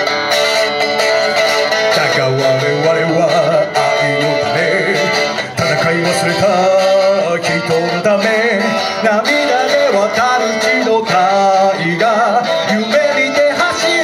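A man singing an anime theme song into a microphone while playing an electric guitar, both amplified through PA speakers.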